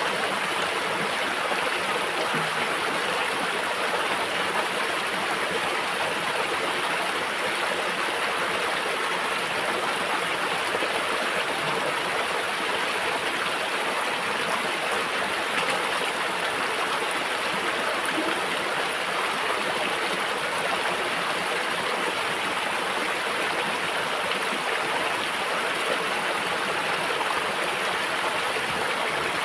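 Shallow rocky stream running steadily, an even rush of water flowing over stones.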